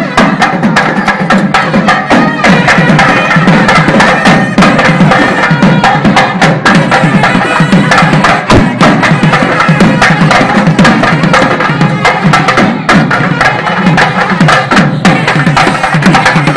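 Loud, fast traditional South Indian drumming, many drums beating together in a dense, unbroken rhythm with a crowd close around.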